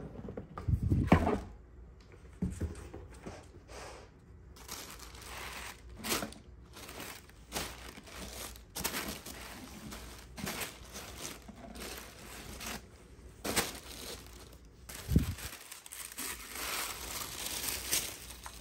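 Tissue paper and wrapping rustling and crinkling as a boot box is opened and a boot unwrapped, in short repeated strokes. A dull thump about a second in is the loudest sound, and there is another thump near the end.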